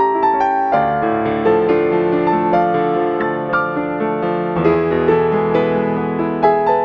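Solo piano background music: a gentle melody struck a couple of notes a second over held chords, with the harmony changing just under a second in and again about halfway through.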